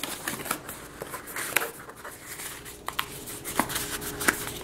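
Cardboard packaging being handled: a series of light taps, clicks and rustles as a paperboard insert is pulled out of a laptop box's tray and folded.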